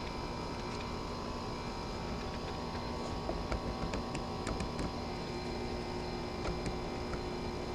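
Steady mechanical hum with a few faint held tones, under light brush strokes and small clicks and taps of a paintbrush on wood and on the paint can rim, clustered a few seconds in.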